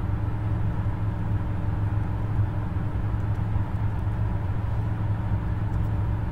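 Steady low rumbling background noise with a faint hum, and a few faint clicks from computer keys partway through.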